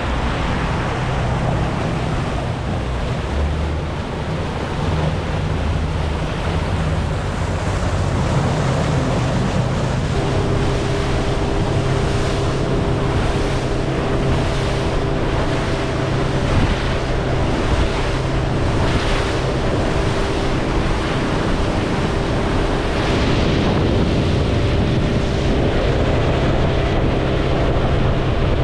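Boat under way: wind buffeting the microphone and water rushing past the hull over the running Suzuki outboard. About ten seconds in, a steady engine tone comes in and holds.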